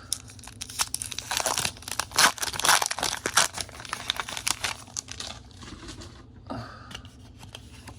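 Foil Pokémon booster pack wrapper being torn open and crinkled, with dense crackling for about the first five seconds, then quieter, sparser rustles.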